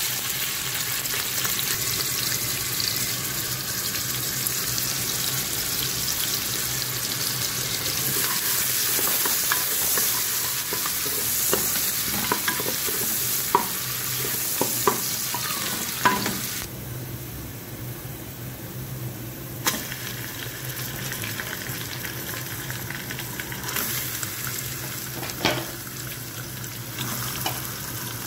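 Chopped onions sizzling in hot oil in a pressure cooker, stirred with a spatula that knocks against the pot several times. About two-thirds of the way through, the sizzle suddenly turns quieter.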